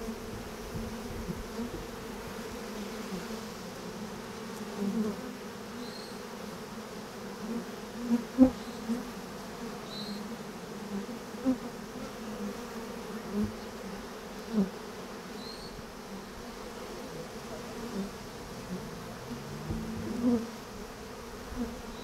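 A honey bee colony humming steadily as it clusters on and around its wooden hive box, freshly transferred into it, with single bees buzzing loudly past close up every second or two.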